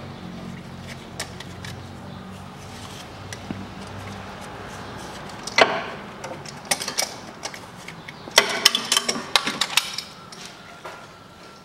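Hand tools clicking and knocking against a stuck spin-on oil filter under the engine: one sharp knock about halfway through, then a quick run of clatters near the end.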